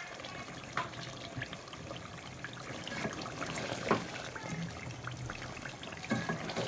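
Meat curry gravy simmering in a pot as a spatula stirs through the pieces: quiet wet bubbling and sloshing, with scattered small clicks and scrapes of the spatula.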